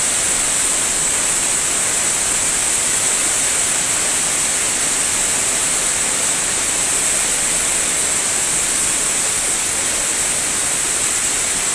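Floodwater rushing and churning across a flooded floor, a steady hiss that does not let up.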